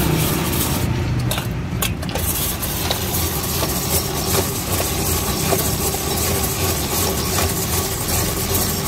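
Hand-cranked cast-iron ice shaver grinding a block of ice into snow for a gola: a steady rasping with faint regular clicks about twice a second, over a low steady engine rumble.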